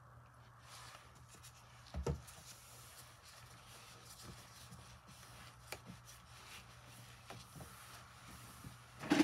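Quiet handling noises on a stainless steel worktop: a thump about two seconds in, a paper towel wiping the counter with a few small clicks, and a louder knock near the end.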